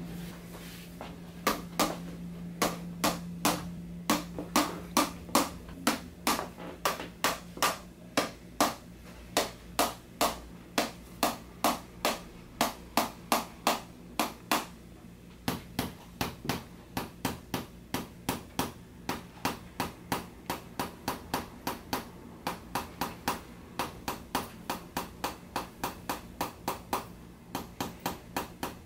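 Spring-loaded chiropractic adjusting instrument firing over and over, sharp clicks about two a second, quickening to about three a second about halfway through, over a steady low hum.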